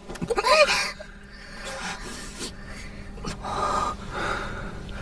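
A young man gasping and breathing hard in pain while his wound is being treated, holding back from crying out: a short strained vocal sound about half a second in, then several heavy breaths.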